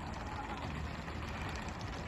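Pole-and-line fishing boat's engine running as a steady low rumble under the even hiss of the water sprayers spraying onto the sea.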